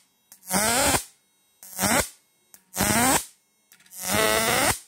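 Four loud, harsh electrical buzzes of about half a second each, each rising in pitch: the high-voltage output of a homemade transistor inverter (an electric fish-shocking machine) arcing as its lead is touched to the terminal, with bright flashes.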